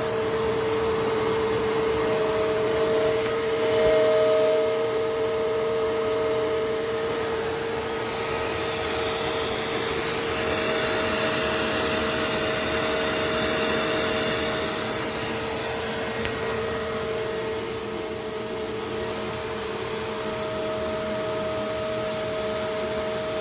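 Upright vacuum cleaner running steadily: a constant motor whine over rushing air, growing louder for a few seconds around the middle.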